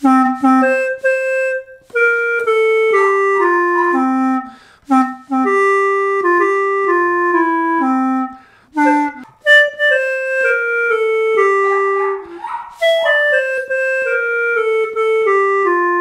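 Hohner Claviola, a keyboard wind instrument blown through a mouthpiece, playing a single-note melody in phrases that step downward, with short pauses between them. It has a clear, clarinet-like tone.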